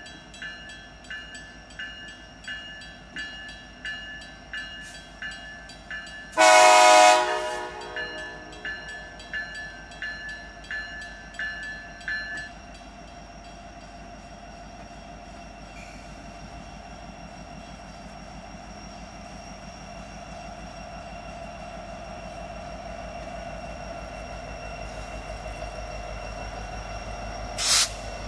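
Grade-crossing warning bell dinging steadily, about one and a half strikes a second, until about 12 seconds in. A Norfolk Southern EMD SD70ACe diesel locomotive sounds one short horn blast about 6 seconds in, and its engine and rolling wheels then build up steadily as it draws level, with a short loud burst near the end.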